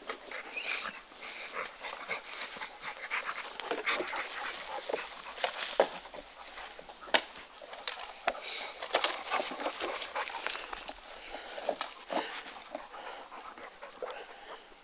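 A dog panting, with many short crackling clicks and scuffs and one sharper click about halfway through.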